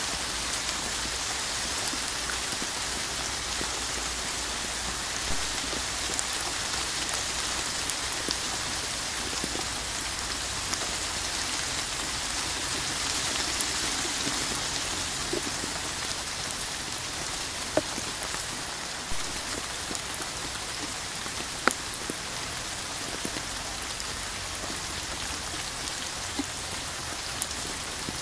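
Steady rain falling and pattering on a hard surface: an even hiss. Now and then a single louder drop lands close by, about half a dozen times.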